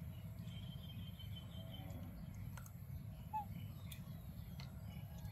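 Quiet outdoor background with a steady low rumble, a few faint clicks and small chirps: a thin high chirping from about half a second to two seconds in, and one short chirp at about three and a half seconds.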